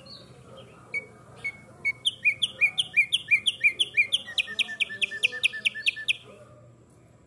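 Caged black-striped sparrow (tumbayegua) singing one song: a few spaced single notes, then a long run of rising slurred notes that speeds up into a faster, even series before stopping.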